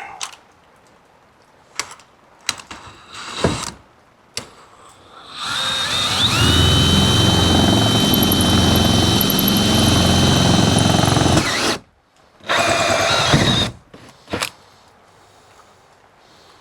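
Power drill driving a two-inch hole saw into a truck's rear bumper. The motor runs for about six seconds, its whine climbing as it spins up and then holding steady. It stops, and a shorter second run follows. A few clicks and knocks come before the drilling.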